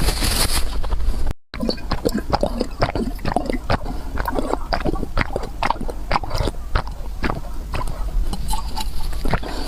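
Close-miked eating sounds: rapid chewing with many short clicks in quick succession. The sound cuts out for a moment about a second and a half in.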